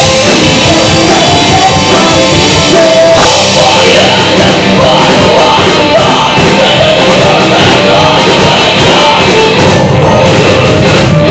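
Live rock band playing with electric guitar, very loud and steady throughout.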